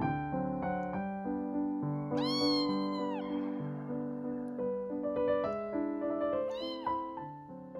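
A kitten meows twice over soft piano music: one long, high meow about two seconds in, and a short one near the end.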